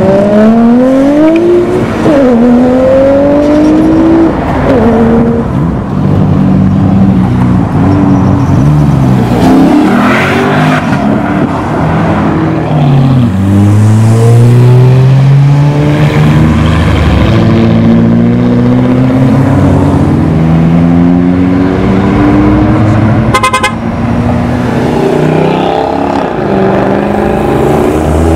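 Several sports cars accelerating hard away one after another, engines revving up through the gears, the pitch climbing and dropping back at each shift. A brief rapid crackle about 23 seconds in.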